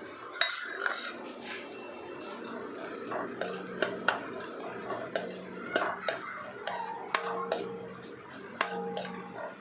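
Steel spoon stirring dry fruits frying in ghee in a nonstick kadhai. It scrapes and clinks against the pan at irregular moments, with sharp clinks scattered throughout.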